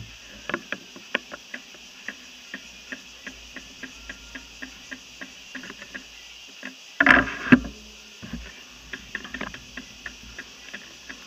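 A bicycle rolling off and picking up speed, with light irregular ticks and rattles, about three a second, picked up through its handlebar mount. A louder clatter comes about seven seconds in, as from a bump.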